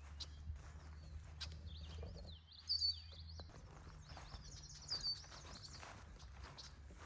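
Songbird singing short, quick chirping phrases, loudest about three seconds in and again near five seconds, over a steady low rumble and faint footsteps on a trail.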